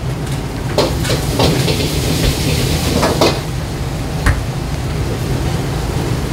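Steady rumble and hiss of a busy ramen kitchen, with about half a dozen sharp clinks and knocks of metal cookware and bowls.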